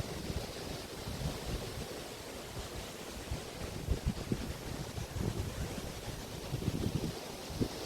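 Waves washing on a Río de la Plata beach as a steady surf hiss, with wind buffeting the microphone in irregular low gusts.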